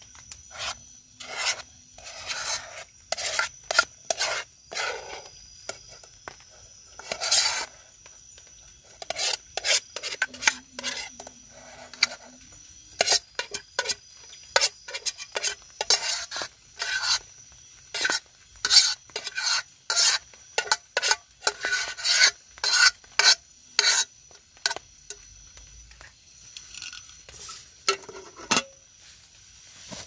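A spoon scraping and knocking against a camping cook-set pot and pan while scooping out rice: a long run of short, sharp scrapes, busiest in the middle and thinning out near the end.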